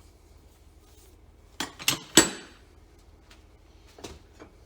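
Metal parts and tools clanking as they are handled and set in place: three sharp knocks close together about two seconds in, the last and loudest ringing briefly, then a few lighter clicks near the end.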